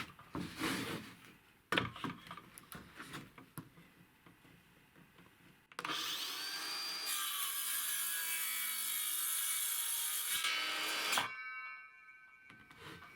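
Wood scraping and rubbing in uneven strokes. About six seconds in, a power tool starts with a rising whine and runs loudly for about five seconds, cutting wood, then winds down.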